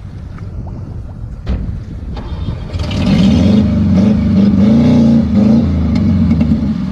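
A car engine revving hard, rising sharply about three seconds in, its pitch wavering up and down, typical of a vehicle stuck in mud with its wheels spinning. There is a single knock shortly before the revving.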